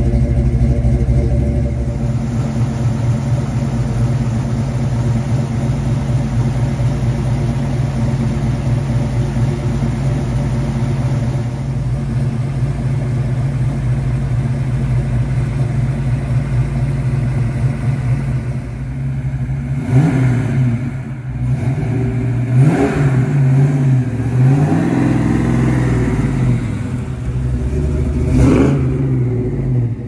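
Ford 331 stroker small-block V8 with a Comp XE274HR cam, short-tube headers and an H-pipe with Flowmaster mufflers, idling with a cammed exhaust note. In the last ten seconds it is revved four times, the third rev held longer than the others.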